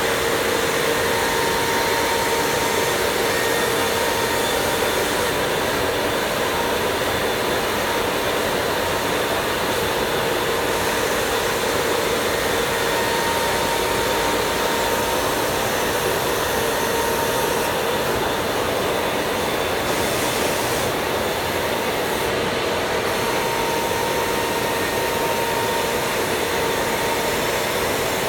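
CNC router spindle running at speed while milling a 10 mm expanded PVC sheet: a steady whine over an even noise of cutting.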